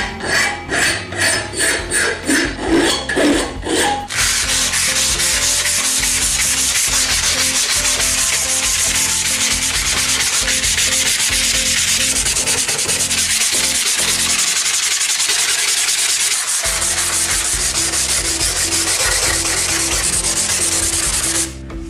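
A hand file is stroked over the steel tang of a rusty bread-cutter blade, about ten even strokes. Then comes fast, continuous hand sanding of the flat steel blade with a sanding block to take off the rust, which stops shortly before the end.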